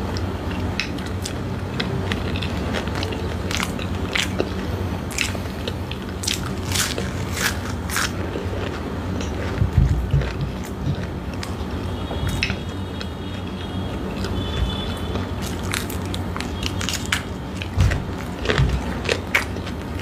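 Close-miked biting and chewing of fried samosas, with crisp crackling crunches of the pastry scattered irregularly throughout, over a low steady hum.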